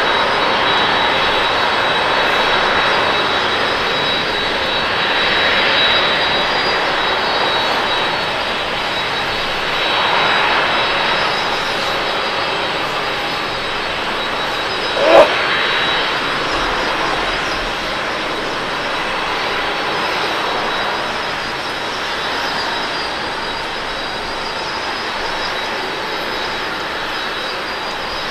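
Boeing 787-9 jet engines and tyre spray rushing as the airliner rolls along a wet runway after landing. The sound slowly fades as it slows. A brief sharp chirp about halfway through is the loudest moment.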